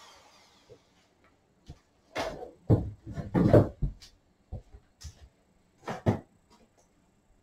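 Dremel 4300 rotary tool spinning down after being switched off, its whine falling away. Then a series of clunks and knocks in a small room, the loudest cluster about two to four seconds in and another pair near six seconds.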